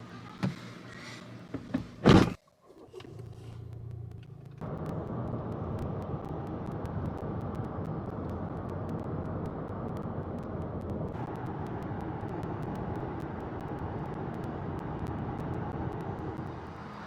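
Car on the road: a few knocks in the first two seconds, the loudest about two seconds in, then a low hum, and from about five seconds steady engine and road noise as the car drives.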